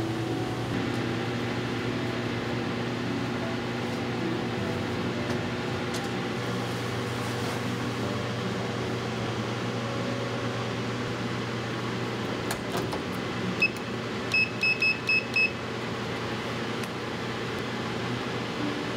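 Steady fan drone with a low hum throughout. About two-thirds of the way through come a few clicks, then a single electronic beep and a quick run of five short beeps from the drying oven's digital controls, likely a timer being set.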